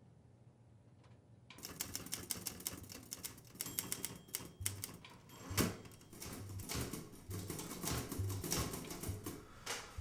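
Faint ticking, then an old manual typewriter starts clacking about one and a half seconds in: rapid, uneven key strikes typing on.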